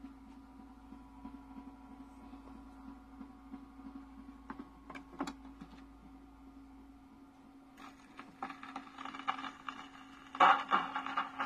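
Vintage Lionel Mickey Mouse Club portable record player running: a steady motor hum with a few light clicks as the 45 rpm record spins. About eight seconds in, the needle meets the record and surface hiss and crackle start. A little over ten seconds in, the record's music comes through the built-in speaker, much louder.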